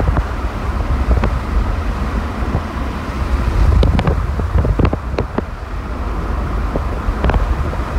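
Car driving along a road, heard from inside the car: a steady low rumble of road and engine noise with wind buffeting the microphone. Scattered sharp clicks come through it, most of them in a cluster around the middle.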